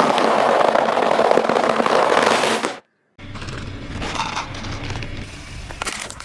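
A car tyre rolling over a pile of round cereal puffs, crushing them in a loud, dense crackle that stops suddenly about three seconds in. After a short silence comes quieter crinkling and rattling of dry cat food kibble from a plastic bag.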